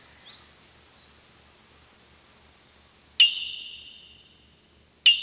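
Two sharp struck percussion hits about two seconds apart, each ringing out bright and fading over about a second and a half, with faint bird chirps at the very start.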